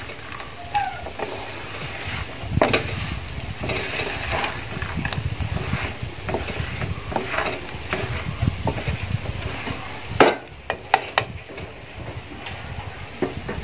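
Wooden spatula stirring and scraping syrup-coated boondi around a metal pan while mixing it for laddu. A few sharp knocks come about ten seconds in, and then the stirring stops.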